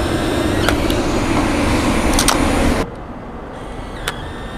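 City street traffic noise, a dense rumble and hiss with a few sharp clicks, dropping suddenly to a quieter background about three seconds in.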